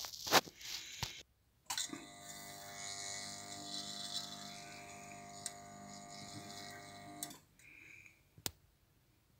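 Soldering unit humming steadily with a hiss as the tip is held on brass to tack-solder it. The hum switches on about two seconds in and cuts off sharply some five seconds later, with a few light clicks of metal parts before and after.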